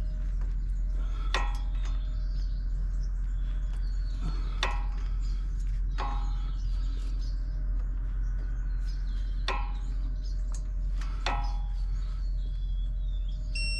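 About five sharp metal-on-metal hammer strikes, a second or several apart, each ringing briefly, over a steady low hum with faint bird chirps.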